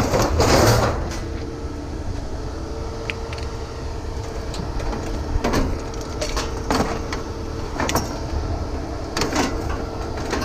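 Scrap metal being handled, with a few sharp knocks and clanks in the second half over a steady low hum.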